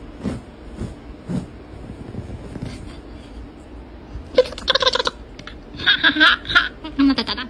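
A few soft thumps, then a person laughing in short pulsed bursts through the last three seconds.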